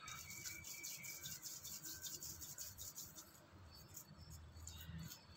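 Faint, quick soft ticks and rubbing of palms rolling a gram-flour and coriander dough log on a wooden pastry board.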